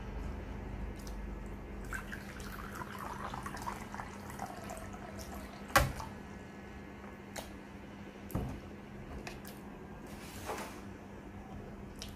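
Liquid poured from a stainless-steel electric kettle into a glass bowl: a gurgling, splashing stream whose pitch wavers and falls from about two seconds in to about five. A sharp clink follows about six seconds in, and a softer knock a little over two seconds later.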